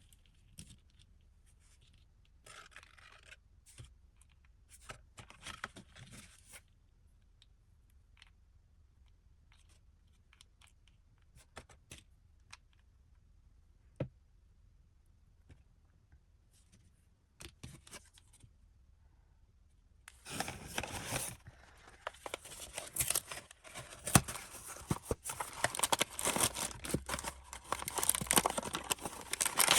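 Blind box packaging being opened by hand: scattered light clicks and short rustles, then, about two-thirds of the way in, a long stretch of loud crinkling and tearing of the wrapper.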